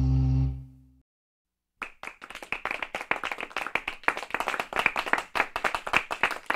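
A held low musical chord fades out in the first second. After a short silence, an audience starts clapping and keeps on.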